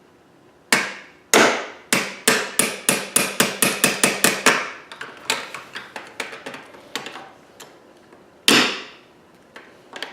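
Hammer blows on a part of a fire alarm pull station: sharp strikes that speed up to about five a second, then lighter taps, and one more hard blow near the end.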